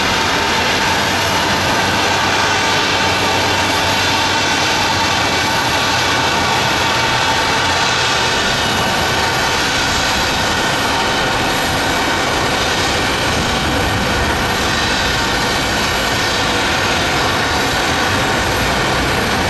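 Boeing 777-200ER's Rolls-Royce Trent 800 turbofans at take-off thrust: a loud, steady jet roar with a layer of high, steady fan whine.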